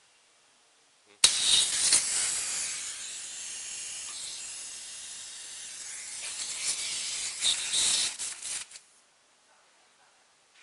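Compressed air hissing out of an open pneumatic air line. It starts abruptly about a second in, runs for about seven seconds, then sputters in uneven spurts before cutting off.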